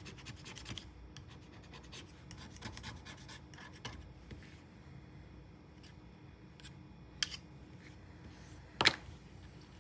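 A knife blade scraping residue off a laptop part in short, quick scratching strokes, busiest in the first few seconds and sparser after, with a sharp tick near the end.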